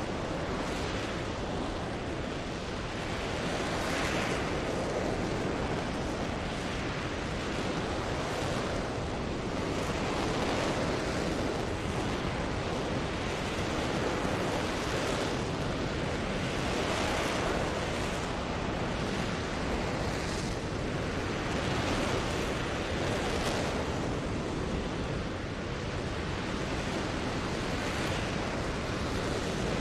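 RS-25 liquid-hydrogen/liquid-oxygen rocket engine firing during a static hot-fire test: a steady, dense rushing noise that swells unevenly every few seconds.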